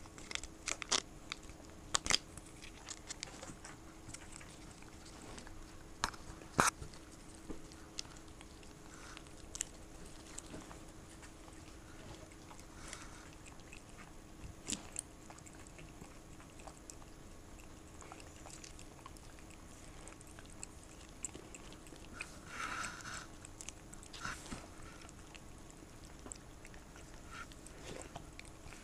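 A cat licking and lapping paste treat from a squeezed tube: scattered wet clicks and smacks of its tongue and mouth, some louder than others.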